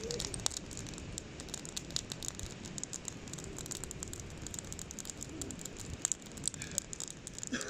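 Campfire crackling, with many scattered sharp pops over a low rumble.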